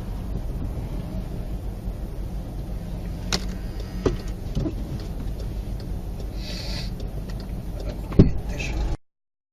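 A motor vehicle running, with a steady low rumble and a few sharp knocks; the sound cuts off suddenly near the end.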